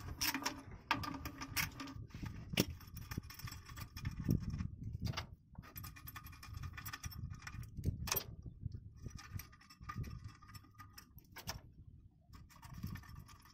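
Hand tools clinking and rattling on metal while the clutch adjusting bolts are worked, with a few sharp clicks here and there.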